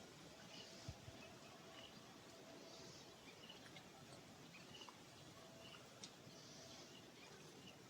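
Near silence: faint outdoor ambience with small, evenly repeated bird chirps.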